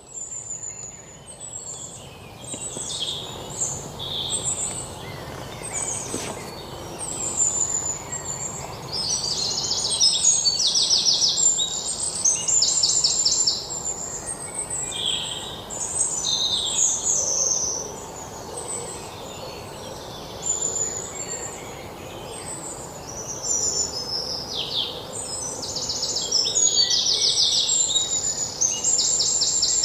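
Several birds calling and singing together, a busy mix of short high chirps and fast trills that swells twice, over a faint steady background hum.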